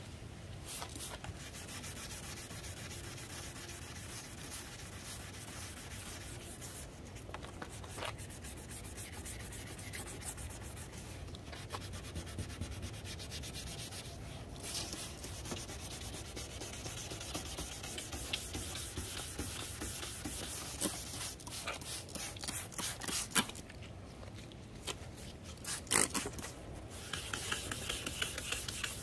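Sandpaper rubbing back and forth over a plastic headlight lens in rapid, even strokes, stripping off old clear coat and oxidation, with a few short pauses. Two sharp knocks near the end.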